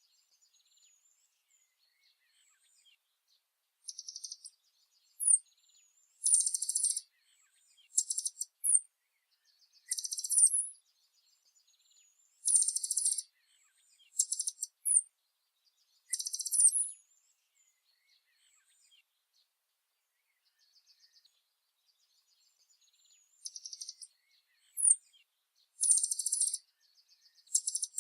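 Small songbird singing very high-pitched phrases, each a rapid buzzy trill often followed by a quick sharp note, repeated every second or two. The song pauses about 17 seconds in, leaving only faint chirps, and picks up again about 23 seconds in.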